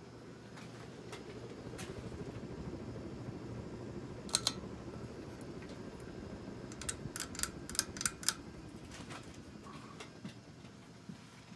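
Hunter Low Profile II 52-inch ceiling fan running with a steady low whoosh that eases off near the end. Two sharp clicks come about four seconds in, and a quick run of about six clicks follows between seven and eight and a half seconds.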